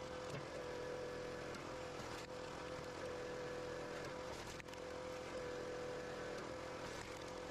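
Firewood processor's engine running steadily, with a constant whine over it.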